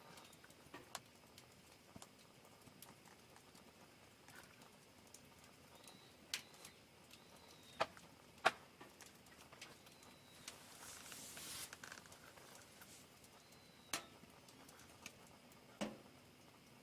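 Wood fire crackling quietly: scattered sharp pops and snaps, a handful of them louder, with a brief hiss about ten seconds in.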